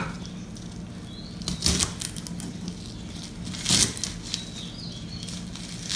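Kitchen knife slicing through a bunch of garlic chives on a thick wooden chopping block: a few crisp cuts with light knocks on the board, about every two seconds.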